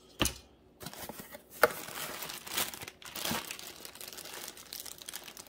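A clear plastic bag of small mounting parts crinkling as hands pull it from the cardboard box and handle it, with louder crackles here and there. A single thump comes about a quarter second in.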